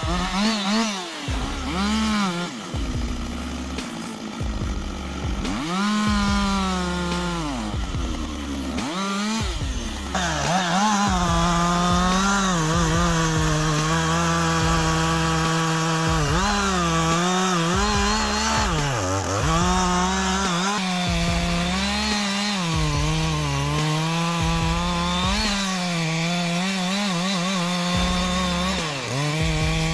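Chainsaw cutting wood, revved in short bursts at first, then running at high speed from about ten seconds in. Its engine pitch sags and recovers again and again as the chain bites into the wood.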